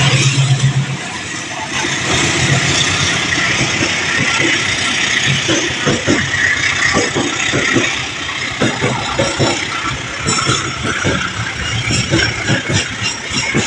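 Road vehicle engines running and idling at a railway level crossing, with a growing run of sharp knocks and clatter through the second half as a train arrives.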